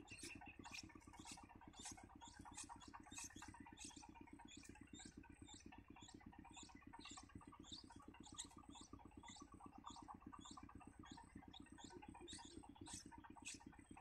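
Faint, rapid high-pitched cheeps from nestling songbirds begging for food, about three a second, over a thin steady high tone.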